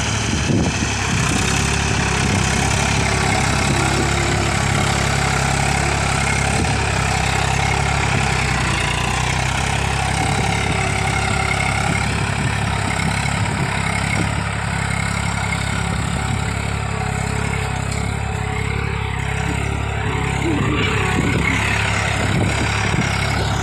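Eicher 380 tractor's diesel engine running steadily under load as it pulls a tined tillage implement through the soil.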